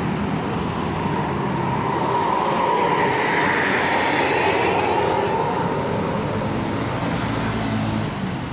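A bus driving past close by: engine and tyre noise swell to a peak about four seconds in and then fade. A low steady engine hum is heard before and after the pass.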